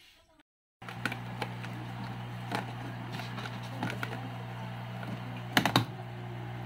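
A steady electric hum, with scattered light clicks and a short louder clatter of clicks about five and a half seconds in; it starts abruptly after a brief dropout at the start.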